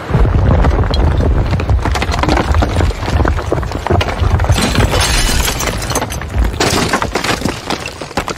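Building-collapse sound effect: a deep, continuous rumble filled with crashing and breaking debris. Sharper crashes flare up about halfway through and again near the end, and the sound dies down toward the end.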